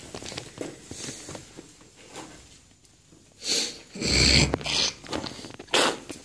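Sneakers scuffing and scraping on a concrete slab during a climb: light scuffs at first, then a loud scrape and a heavy thump about four seconds in, and another scrape near the end.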